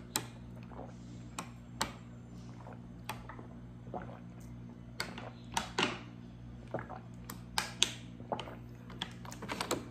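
Someone drinking in long gulps from a 1.5-litre plastic water bottle: irregular swallows and sharp clicks and crackles of the thin plastic flexing, coming more often in the last few seconds.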